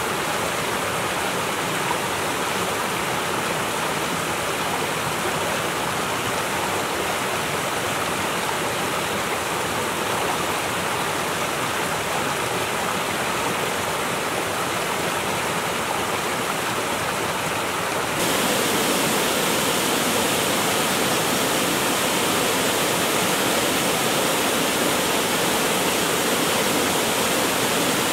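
Steady rushing water noise, an even wash with no separate drops or splashes, that becomes abruptly louder and hissier about eighteen seconds in.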